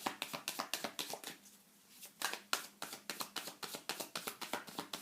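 Tarot cards shuffled by hand: a rapid run of soft card slaps that pauses for about half a second near a second and a half in, then resumes.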